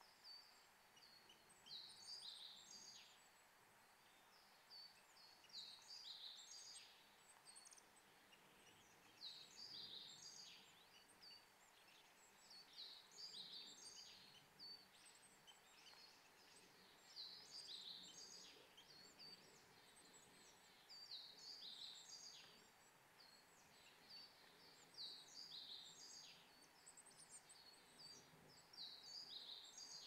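A small songbird singing faintly: short, high phrases of several quick notes, one phrase every two to four seconds.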